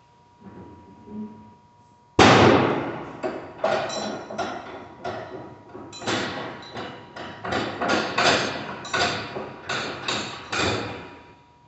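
A few faint thuds, then, starting suddenly about two seconds in, a loud irregular run of sharp knocks and bangs, roughly one or two a second, that stops shortly before the end.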